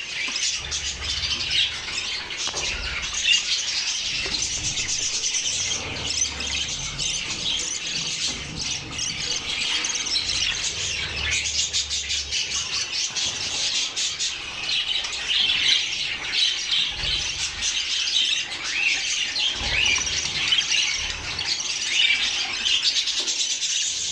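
Budgerigars chirping and chattering in a cage, a dense unbroken stream of high chirps and squawks.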